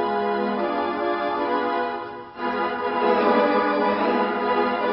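Organ music playing sustained chords, with a short break a little over two seconds in before it carries on.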